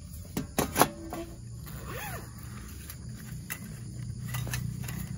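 Sharp metal clinks from a folding perforated metal camp stove being handled and folded, the loudest a little under a second in. Later come lighter knocks and handling noise as a folding barbecue grill is pulled from its fabric pouch.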